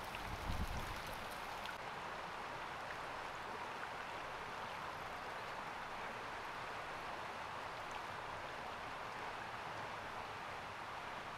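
Steady, even outdoor background noise with no clear calls, and one brief low thump about half a second in.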